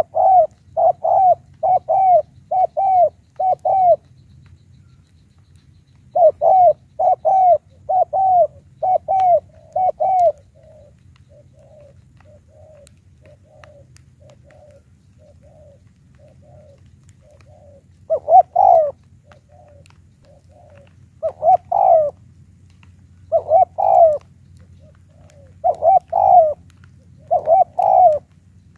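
Spotted dove cooing, a decoy bird with a high-pitched call: runs of loud, quick coos about two a second, broken by pauses. In the middle a fainter, softer series of coos carries on between the loud runs.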